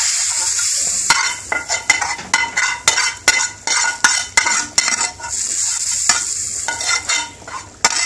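Hot oil with fried garlic poured onto boiled red lentils, sizzling. From about a second in, quick ringing metal taps, about two or three a second, come from the pan and pot. The sizzle swells again past the middle, and more taps follow near the end.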